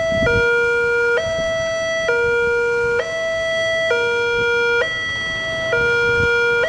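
Railway level-crossing warning alarm sounding its electronic two-tone signal, switching between a lower and a higher tone about every second. The crossing is closed with the barriers down, warning of an approaching train.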